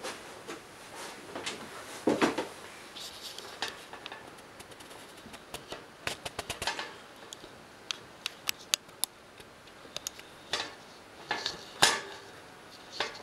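Handling noise from a camera being moved about and brought to rest on a desk: scattered knocks, rustles and sharp clicks, with a run of quick clicks in the middle and a louder knock near the end.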